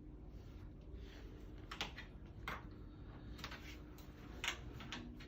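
Faint, irregular clicks from a hex key turning the wheel-height adjustment screw on a sliding closet door, about half a dozen clicks spread across a few seconds.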